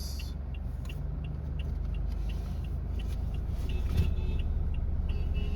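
Road vehicle cabin: a steady low engine and road rumble, with a regular light ticking over it.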